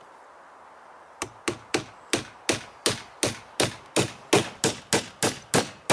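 Hammer nailing a fence-panel bracket to a timber fence post: about fifteen sharp, evenly paced blows, roughly three a second, starting about a second in.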